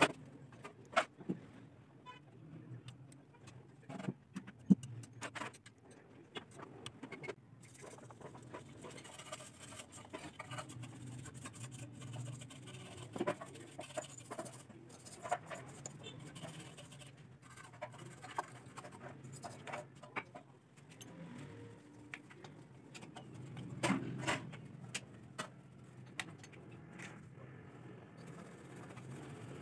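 Scattered metallic clicks and clinks of a combination wrench working the valve-cover bolts on a small OHV gasoline generator engine, over a low steady hum.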